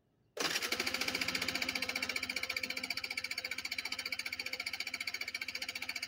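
Scooter engine being cranked over on its electric starter from a cold start, starting just under half a second in as rapid, even pulses that go on steadily without the engine catching.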